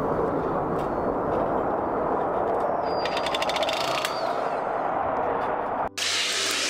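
Ryobi 18V cordless offset power shears cutting a strip of metal drip edge, a steady rapid chatter that cuts off abruptly near the end.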